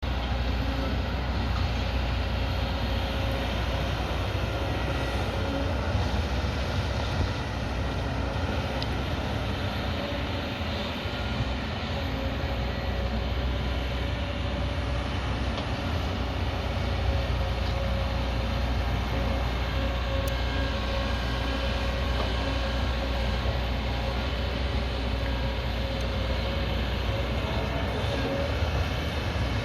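Hydraulic excavator's diesel engine running steadily under working load, with a continuous low rumble and a steady whine over it.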